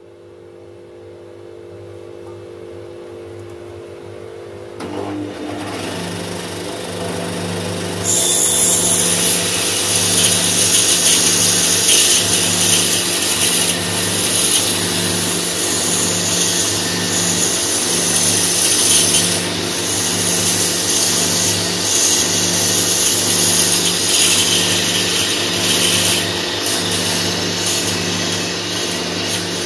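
Pegas fine-cut bandsaw running, then from about eight seconds in its blade cutting through a squared wooden block with a loud, steady sawing hiss.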